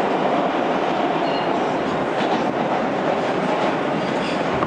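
NYC subway R160 car running steadily on the rails, heard from inside the car: a loud, even rumble of wheels and running gear, with a few faint, short high squeals now and then.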